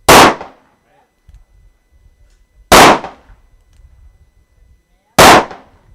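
Smith & Wesson 500 X-frame revolver firing three loud .500 S&W Magnum shots about two and a half seconds apart, each a sharp report that trails off over about half a second.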